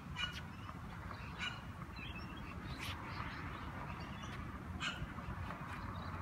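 Tennis ball tapping repeatedly on the edge of a tennis racquet's frame, a series of light, sharp knocks, with birds chirping in the background.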